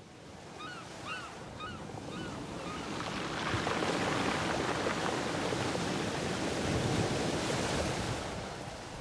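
Sea waves washing in, swelling about three seconds in and easing off near the end, with gulls calling several times in the first few seconds.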